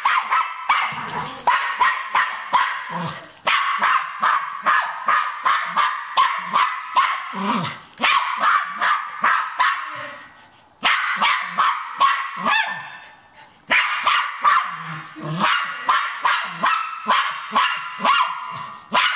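Cairn terrier barking rapidly and repeatedly, several high-pitched barks a second, in bouts broken by short pauses.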